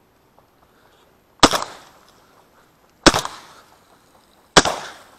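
Three shotgun shots, about a second and a half apart. Each is a sharp crack with a short echo trailing off.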